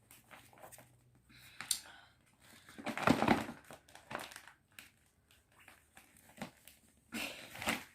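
Packaging crinkling and rustling in uneven bursts as a bedsheet set is handled and unwrapped. The loudest burst comes about three seconds in, and another comes near the end.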